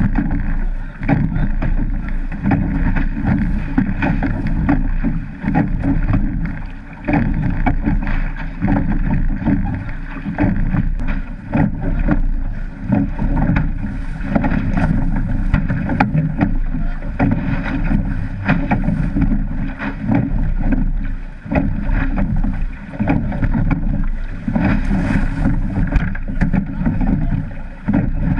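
Wind buffeting the microphone of a camera on a surf boat, with water rushing and splashing along the hull as the crew rows through breaking surf; the noise surges in uneven gusts.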